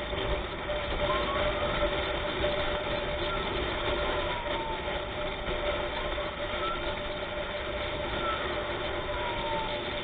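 Steady rushing road noise of vehicles on the move, with a steady drone. Faintly over it, an ambulance siren wails, sliding slowly down and quickly back up in pitch every couple of seconds.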